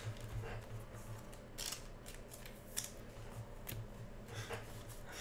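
Trading cards and card packs being handled on a tabletop: a few faint, scattered clicks and light rustles as cards are set down and picked up.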